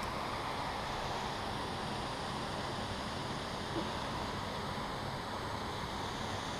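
Steady outdoor background noise, an even hiss without distinct events, with one faint tap about four seconds in.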